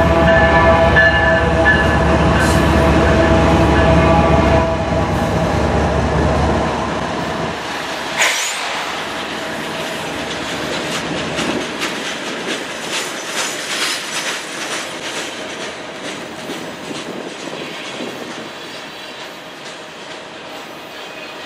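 A freight train passing. For the first several seconds the CN diesel locomotive goes by with a heavy engine rumble and steady whine. Then the loaded centerbeam flatcars roll past with repeated wheel clacks over the rail joints and a brief high squeal about eight seconds in, slowly fading.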